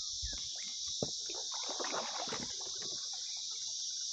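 Steady, high-pitched chorus of insects, with a scatter of clicks and knocks that bunch together about two seconds in.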